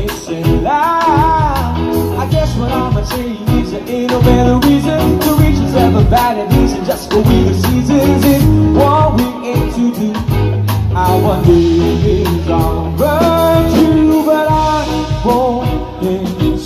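A live band playing a song, with singing over electric bass guitar and drums.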